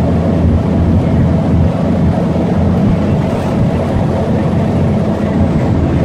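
Volvo B7TL double-decker bus heard from inside the passenger saloon while under way: its Volvo D7C six-cylinder diesel running with the engine cooling fans giving a loud, steady drone.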